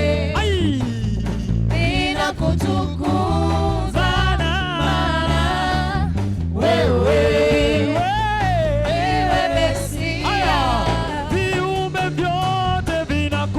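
Gospel praise music: singing voices in long, bending lines over a band with a steady bass.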